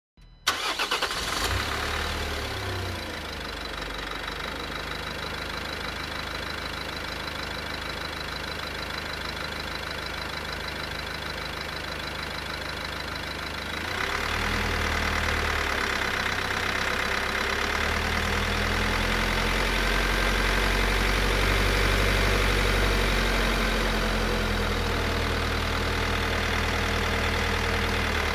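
Renault Master III van's diesel engine cranking briefly and catching about half a second in, then idling steadily. About halfway through it grows louder as the van pulls away, the engine pitch rising and falling through the gears before settling into steady driving.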